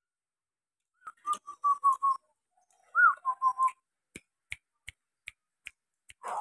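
Zebra dove (perkutut) cooing: a run of about six short, clipped notes, then a rising-and-falling note followed by three or four more short notes. Faint clicks follow at an even pace, about two and a half a second.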